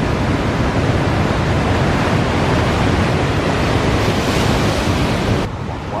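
Big surf breaking: a continuous wash of wave noise with heavy low rumble and wind on the microphone. The hiss of the breaking water grows brighter about four seconds in, then drops abruptly near the end.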